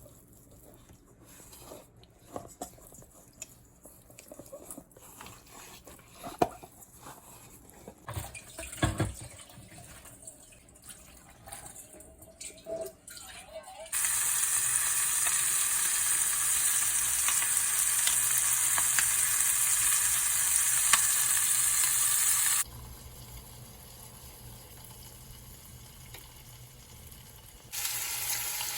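Knocks and clicks of kitchen handling, then a Cornish game hen searing in a hot pan: a loud, steady sizzle that cuts in and out abruptly.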